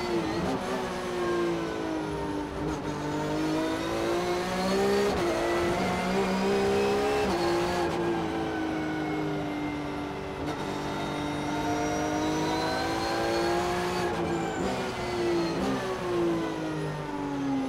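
Onboard sound of a Porsche 911 GT3 Cup race car's flat-six engine at racing speed, heard from inside the cabin. The engine pitch climbs hard, snaps down at quick gear changes, then falls away under braking several times, as on a hot lap.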